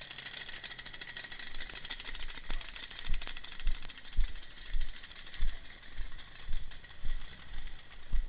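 Footsteps of someone walking with the camera on a woodland dirt trail, heard as dull thuds about twice a second from a couple of seconds in, over a steady high-pitched buzz.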